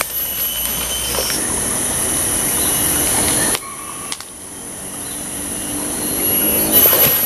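Steady, high-pitched drone of forest insects, with faint low moaning tones twice, first about one and a half seconds in and again about five seconds in.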